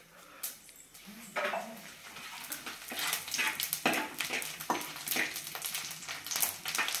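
Whole spices, cinnamon and bay leaf, sizzling and crackling in hot sesame oil in a clay pot. The oil foams up while a metal spoon stirs it. The crackling starts about a second and a half in and grows denser.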